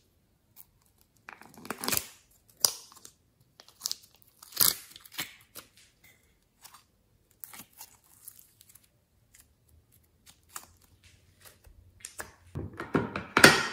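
Soft clay being squeezed and pulled apart by hand, giving scattered sticky crackles and small pops. Near the end comes a longer, louder run of crackling.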